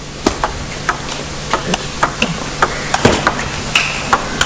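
Table tennis rally: the ball clicks sharply off the table and the bats in quick alternation, about two to three strikes a second, many in close bounce-and-hit pairs.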